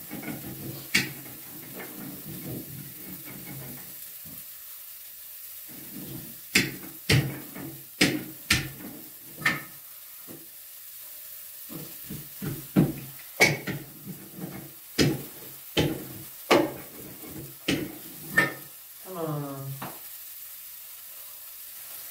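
A wooden rolling pin rumbling back and forth over lahmacun dough on a table, broken by a series of sharp knocks as the pin and hands strike the tabletop while the dough is flattened.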